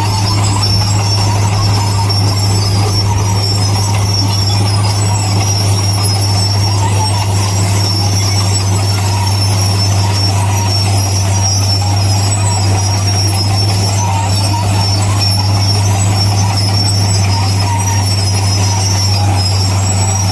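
Heavy diesel construction machinery running at a steady, unchanging drone, with a deep hum and a fainter high whine over it.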